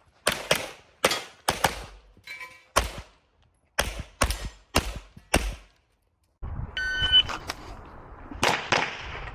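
Handgun shots fired in quick strings, about ten in the first six seconds and often in pairs. After a brief silence a short beep sounds, and more shots follow near the end over a steady background hiss.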